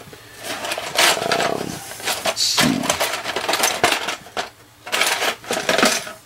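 Plastic model-kit parts and sprues clattering and rustling against each other and the cardboard box as a hand rummages through them, with sharp clicks throughout.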